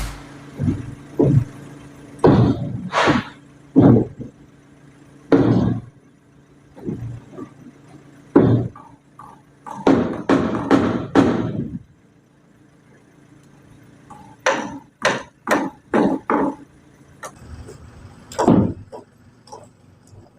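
About fifteen irregular chopping thuds of metal striking soil, some single and some in quick runs, over a faint steady engine hum.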